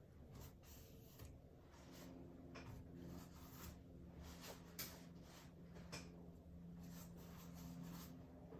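Faint scratchy strokes of a paintbrush dragging acrylic paint across canvas, coming every second or so, with a low steady hum from about two seconds in.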